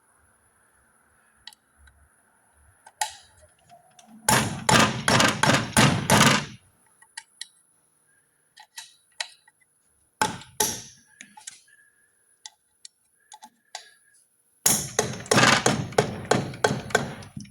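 Two runs of rapid knocking, each about two seconds long and several seconds apart, with scattered single tool clicks between: hand tools at work on a Power Stroke turbocharger being taken apart.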